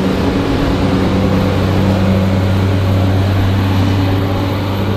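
An engine running steadily, a constant low hum.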